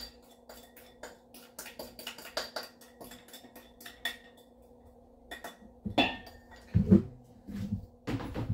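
Metal kitchenware clinking and ringing in quick, irregular strokes over a steady low hum, then a few louder, heavier thumps near the end.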